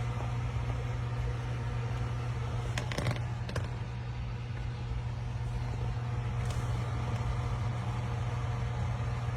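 Steady low mechanical hum, with a few brief clicks about three seconds in.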